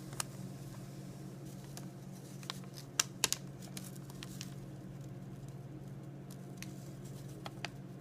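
Light clicks and taps of a folding pocket knife being handled, loudest as two sharp clicks about three seconds in and two more near the end, over a steady low hum.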